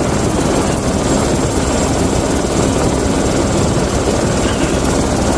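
Helicopter running steadily, its rotor beating in a fast, even rhythm.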